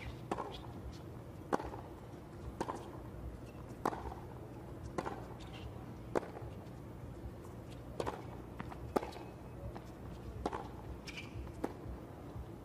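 Tennis rally: rackets hitting the ball back and forth, a sharp pop about once a second, over steady low stadium background noise.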